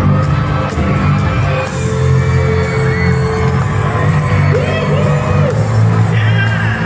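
Loud music with a steady bass line from a live stage show, with the audience whooping and cheering over it.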